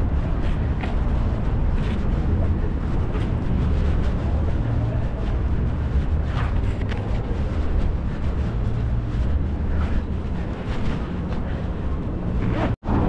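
Steady low rumble of city street traffic, with faint short sounds coming and going over it. The audio drops out for an instant near the end.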